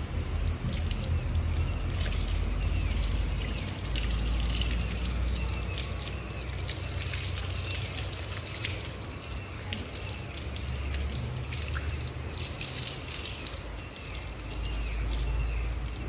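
Water from a garden hose running onto a wet dog's fur and splashing and dripping to the ground, a steady trickle with many small splashes.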